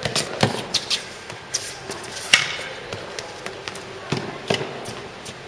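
Tennis rally in an indoor hall: a string of sharp racket strikes on the ball and ball bounces, each with a short echo from the hall, the loudest about two seconds in.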